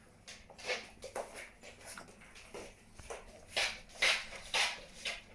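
Presa Canario puppies play-fighting, giving a string of short, irregular yips and growly noises, a few louder ones in the second half.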